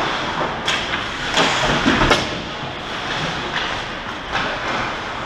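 Ice hockey play on the ice: a steady scrape and hiss of skates, with scattered sharp clacks of sticks and puck, three of them in the first couple of seconds.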